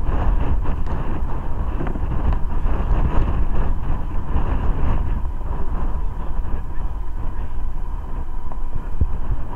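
Boeing 747-400's Rolls-Royce RB211 engines running at low power: a steady whine under a heavy low rumble, with wind buffeting the microphone.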